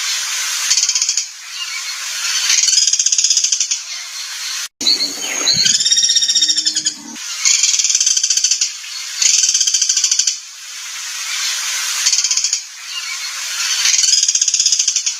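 Recorded songbird song played as tutor material: loud, fast, rattling trills repeating in phrases every second or two. About five seconds in, after a brief cut, a different call with a few down-sliding notes.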